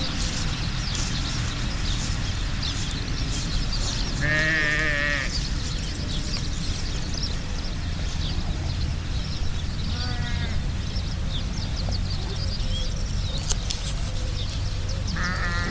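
Skylark song, a continuous high twittering, with a bleating farm animal calling three times, each call a few tenths of a second to a second long and wavering in pitch. A steady low rumble lies underneath.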